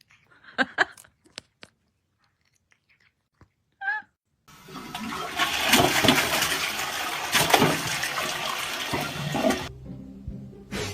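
A loud rush of water, like a flush, runs for about five seconds and then cuts off abruptly. Before it come a few sharp clicks and a short wavering call.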